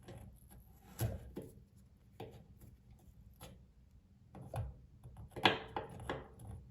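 Scattered light clicks and knocks of tools and faucet parts being handled, with a short, louder rattle about five and a half seconds in.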